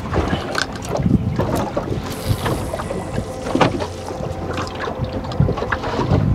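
Wind buffeting the microphone on a small boat, over a faint steady hum. Scattered clicks and knocks come from a fishing rod and reel being handled.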